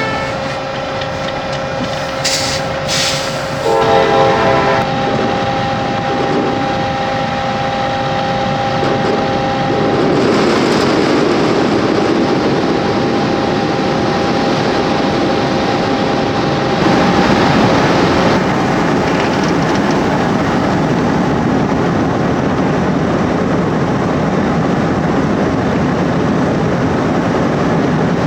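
Potato harvesting machinery running steadily with a continuous mechanical rattle and rumble. A steady whine in the first part fades out after about ten seconds, when the rattle grows louder.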